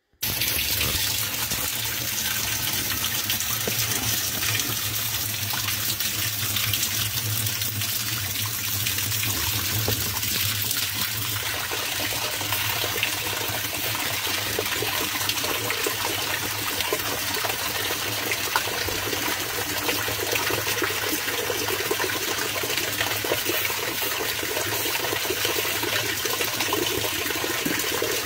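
Top-loading washing machine filling: water streams pouring from the fill inlet into the drum and splashing steadily, with a low hum underneath. The rush of water starts abruptly just after the start.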